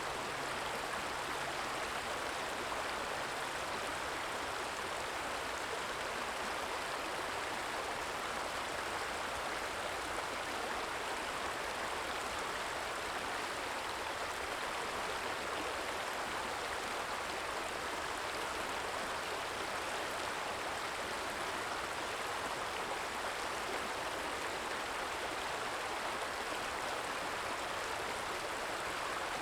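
Small stream trickling and babbling over stones, a steady, even rush of flowing water.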